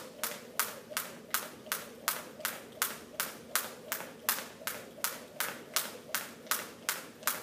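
Jump rope slapping a hard gym floor in a steady skipping rhythm, a sharp snap about two and a half times a second.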